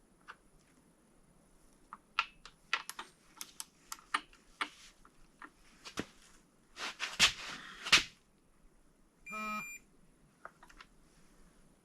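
Metal tools and engine parts clinking and clicking against each other in a series of short taps, with a louder rattling clatter about seven to eight seconds in, during timing chain module installation on a BMW N55 engine block. A short electronic beep sounds about nine and a half seconds in.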